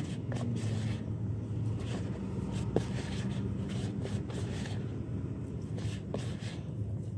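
Hands mixing and kneading a wet groundbait of rice bran and mashed chicken liver, with irregular squelching, rustling and clicking. A steady low hum runs underneath.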